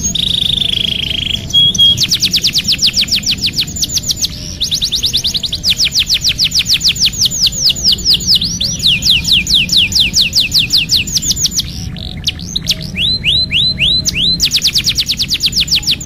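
Domestic canary singing: an opening held whistle, then long rolled trills of rapid, evenly repeated downward-sweeping notes at about ten a second, with the phrase changing twice.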